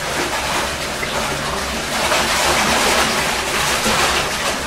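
Steady rush of water in a bathtub while a Welsh terrier wades through it.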